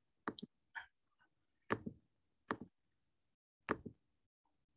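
Computer mouse clicking: about five quiet, sharp clicks, some in quick pairs, spread over a few seconds.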